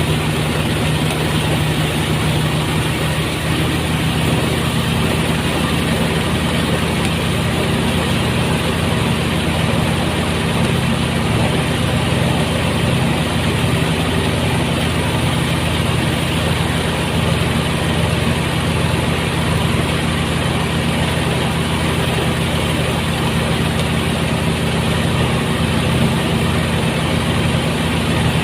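Engine-driven rice threshing machine running steadily, a constant low engine drone with mechanical noise over it.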